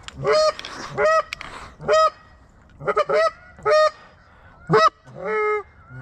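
Goose honks, one at a time, about eight of them roughly a second apart. Each starts low and breaks up to a higher note. The last, near the end, is longer and lower.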